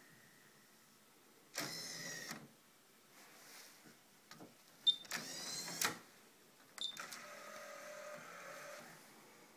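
Motorized faceplate and disc mechanism of a Sony MEX-5Di car CD head unit whirring in three short runs: one about a second and a half in, a rising whine around five seconds with a sharp click at its start, and a longer, steadier hum from about seven to nine seconds.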